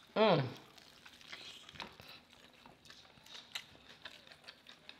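Eating fried chicken drumsticks up close: bites and chewing, with small crunching clicks from the crispy coating. Just after the start comes a brief voiced sound whose pitch rises and then falls, the loudest thing here.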